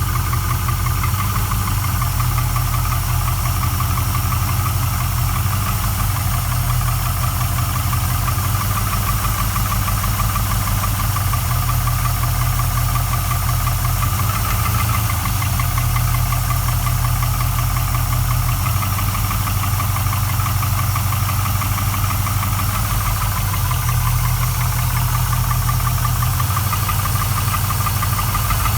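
Rebuilt GM LS1 5.7-litre V8 idling steadily with a fast, regular knock in its running, which the owner cannot yet place as piston slap or a bearing knock.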